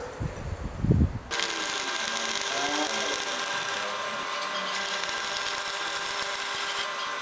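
A few low thumps, then about a second in a stick-welding arc strikes and runs with a steady, dense crackling sizzle until the end, as the electrode is run along a weld.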